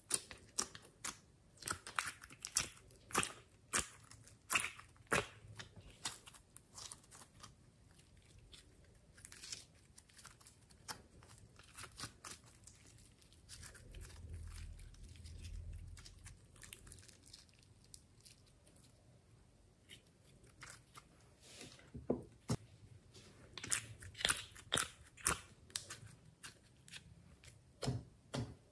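Glossy slime being pressed, poked and squished by fingers, giving quick sticky clicks and crackling pops. The crackling thins out in the middle to a soft low squish while the slime is kneaded, then comes thick again near the end.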